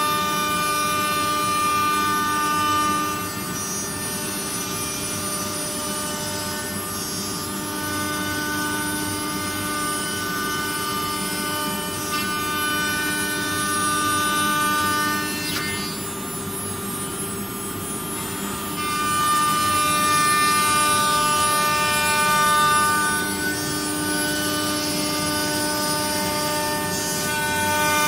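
CNC wood router running: its spindle gives a steady whine made of several fixed tones, with a hissier band that comes and goes. It eases off briefly a little past the middle, then is louder for a few seconds.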